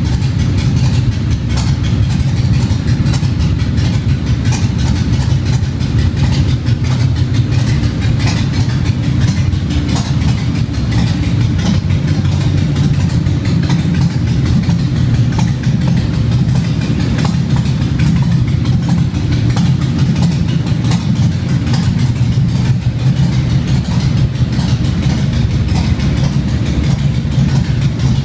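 An engine idling steadily and evenly, with a low, unchanging pitch and no revving.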